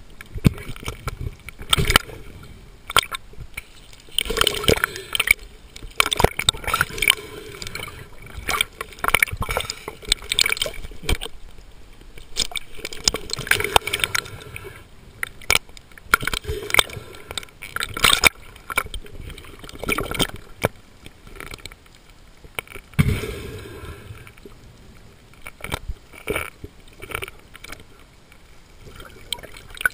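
Underwater sound: irregular bubbling and gurgling with scattered crackles and clicks, coming in uneven bursts.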